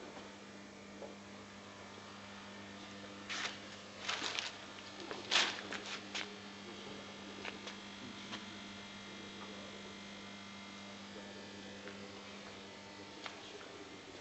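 Cylindrical grinder running with a steady electric hum, with a short burst of clicks and rattles about three to six seconds in.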